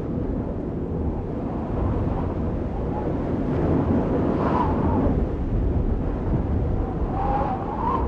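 Steady, low rumbling noise, like wind or distant surf, from the sound design of a video's closing logo card. Faint wavering tones rise out of it briefly twice, about halfway through and near the end.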